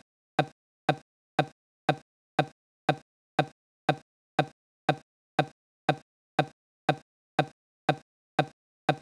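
A short clipped fragment of a man's voice repeating about twice a second with silence between, the same bit over and over: the interview audio stuttering in a glitched loop.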